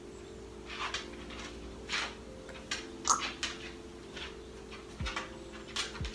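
Light, irregular clicks and taps, about ten in six seconds, from small essential-oil bottles being handled and dripped over a container of vinegar-and-water mix.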